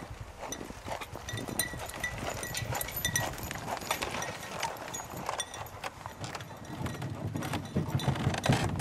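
Two-horse sleigh at a trot in snow: the horses' hoofbeats with light jingling, getting louder near the end as the sleigh comes close.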